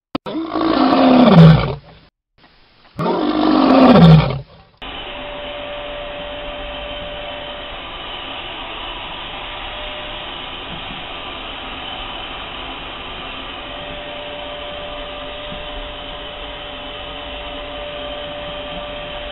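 Two loud roars, each falling in pitch and lasting under two seconds, then a vacuum cleaner starts running steadily with a constant hum and whine as its hose nozzle is drawn through a Chow Chow's thick coat.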